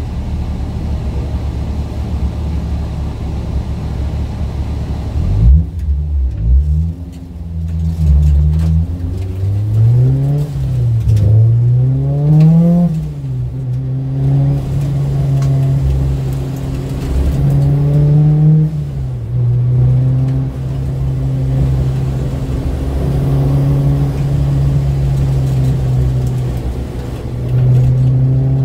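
Honda Civic Type R's four-cylinder engine heard from inside the cabin. It idles for the first few seconds, then pulls away about five seconds in. The revs climb and drop back several times through the gear changes, then hold fairly steady under acceleration, with a brief dip past the middle and a rise again near the end.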